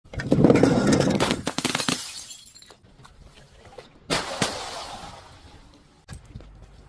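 Glass bottle breaking: a loud crunching shatter of many sharp cracks over the first two seconds, then a second sharp break about four seconds in that rings down, and a small click near the end.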